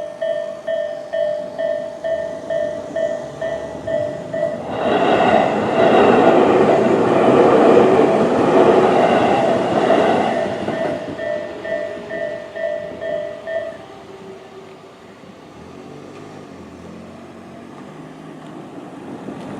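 Japanese level-crossing electronic alarm bell (Tobu 'A' tone) ringing in a fast, even pulse while a Tobu 20400-series electric train runs loudly over the crossing about five to eleven seconds in. The bell stops a few seconds after the train has gone, leaving low background noise.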